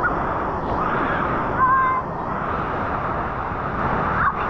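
Waterfall and creek water rushing steadily.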